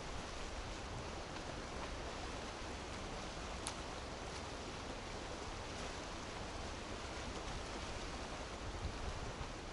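Steady rush of strong typhoon wind, with wind buffeting the microphone as a low rumble, and a faint click a little under four seconds in.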